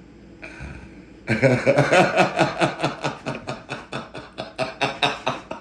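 A man laughing: a long run of rapid pulses, about five a second, tailing off over about four seconds.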